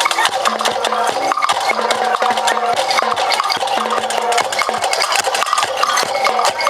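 Music with rapid, busy percussion and a low note that returns in held stretches of about a second.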